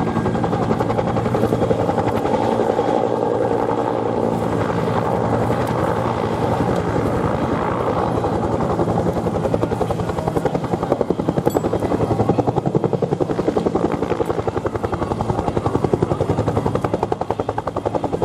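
Bell UH-1 helicopter in flight: its two-bladed main rotor beats rapidly over the steady run of its turbine engine, low and close as it comes into a hover. The blade beats grow more distinct and pulsing from about eleven seconds in.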